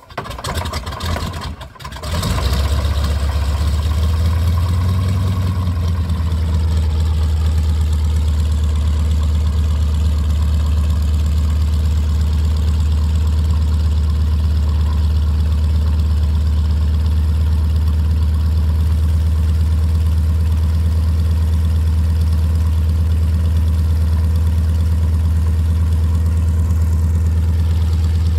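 Yak-52's Vedeneyev M-14P nine-cylinder radial engine starting: it turns over and coughs unevenly for about two seconds, catches, then settles into a steady idle.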